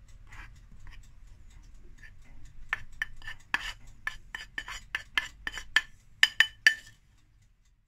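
Flour slides softly out of a bowl into a fine-mesh metal sieve. Then comes a run of light, ringing taps as the bowl and spoon knock against the sieve to shake the last of the flour out, about three or four a second, stopping near the end.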